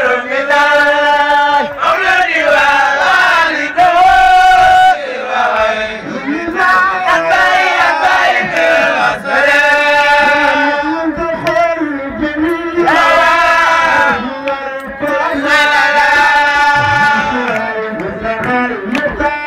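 A man chanting into a microphone in long held notes that bend and waver, with short breaks between phrases.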